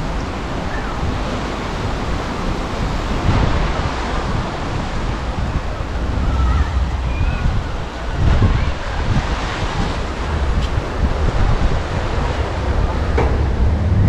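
Waves washing onto a sandy beach in a steady rush, with wind rumbling on the microphone and swelling now and then.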